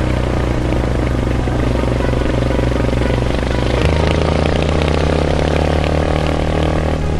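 Yamaha Serow's single-cylinder motorcycle engine running steadily under way, its note shifting about four seconds in.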